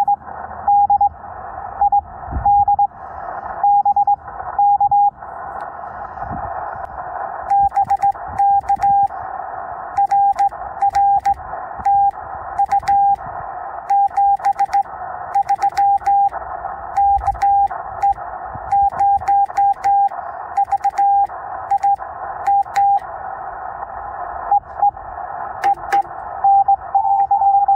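Morse code on the 20-meter band from a Yaesu FT-891 transceiver: a single steady tone keyed on and off in dots and dashes over a hiss of band noise, with sharp clicks scattered among the tones.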